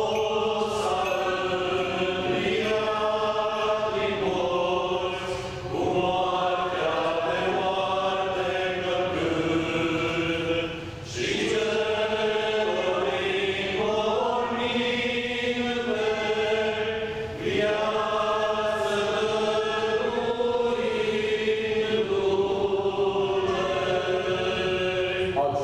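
A group of voices singing Orthodox Easter chant, sustained phrases of stepwise melody with a short break between them about every six seconds.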